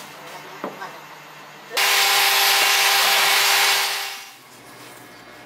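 An electric power tool runs for about two seconds. It starts abruptly and winds down as it stops. A light wooden knock comes before it, from the pine slats being handled.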